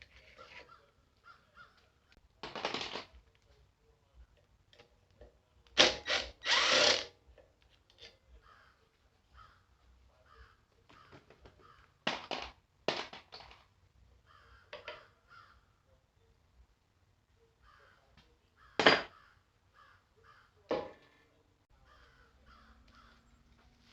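Crows cawing in a series of short calls, a few loud and close, others fainter.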